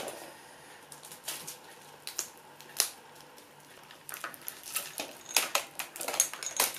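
Scattered clicks and knocks as a small ring light is handled and fixed onto a tripod, turning into denser crackling and rustling of duct tape being pulled and wrapped around it over the last few seconds.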